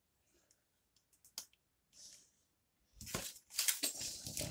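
Comic books in plastic sleeves being handled: a few faint clicks and a soft rustle, then from about three seconds in, louder crinkling and rustling of the plastic.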